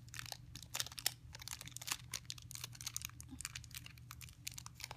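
Plastic toy packaging crinkling as it is handled and opened, in quick irregular crackles.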